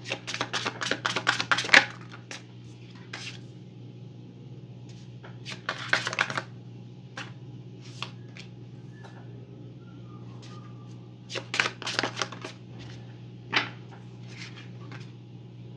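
A tarot deck shuffled by hand: three bursts of rapid card-slapping clicks, at the start, about six seconds in and about twelve seconds in, with a few single taps between.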